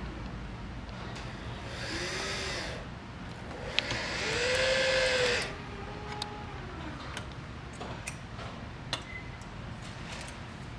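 Power drill/driver run in two short bursts, the motor speeding up and slowing down each time, the second burst louder and longer. A few light clicks and knocks follow.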